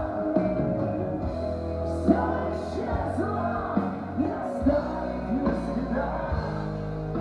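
A song playing: singing over a rock-style band backing with sustained bass and guitar notes.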